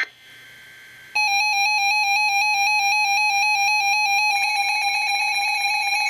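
Weather radio receiver's electronic alert tone: a loud, steady, buzzy beeping tone starts about a second in and shifts in sound about three seconds later, signalling an incoming emergency alert.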